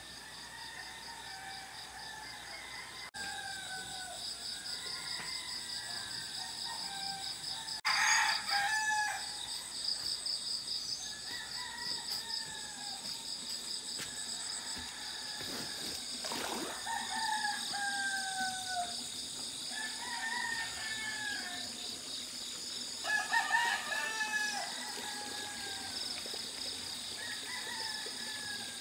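Several roosters crowing back and forth at different distances, with a louder, closer crow about eight seconds in and again about twenty-three seconds in. Underneath runs a steady, pulsing insect chorus.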